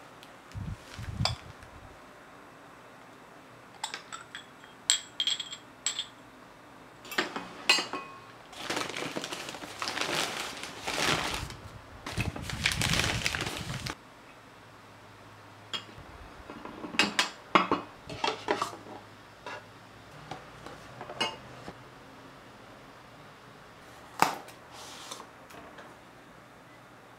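Glass cups and ceramic dishes clinking and knocking as they are unwrapped and set down on a table, some clinks with a short glassy ring. A few seconds of rustling plastic packaging come around the middle.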